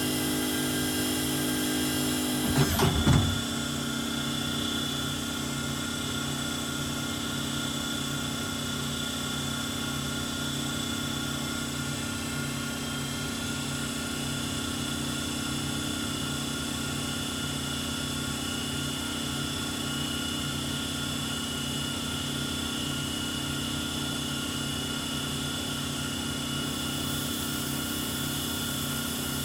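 Compound automatic lathe machining small-diameter parts, running with a steady hum made of several held tones over a regular low pulse. A brief louder, noisier burst comes about three seconds in, after which the tone shifts slightly lower.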